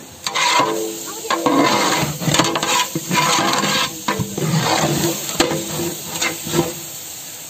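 A perforated ladle stirring and scraping chopped mutton, onions and tomatoes around a large metal cooking pot, with the food sizzling and several sharp knocks of the ladle against the pot.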